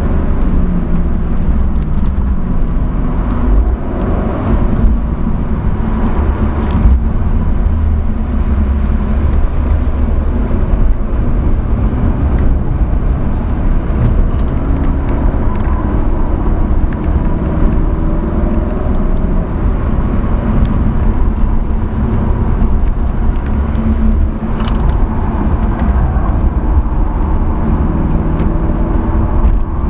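Dodge Charger SRT's V8 engine heard from inside the cabin under hard track driving, a loud, steady low drone whose pitch falls and rises as the car slows for a corner and accelerates out again.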